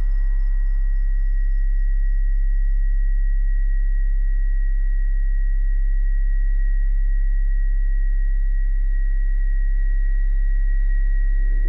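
A steady, deep hum with a constant high, thin tone held above it, unchanging throughout like an electronic drone.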